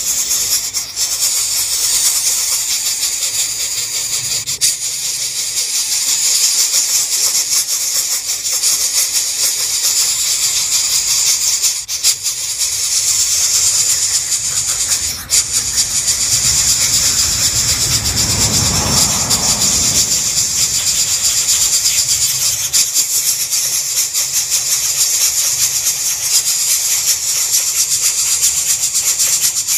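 Coucal nestlings begging for food with a loud, continuous rasping hiss. About two-thirds of the way through, a lower rustling sound swells briefly and fades.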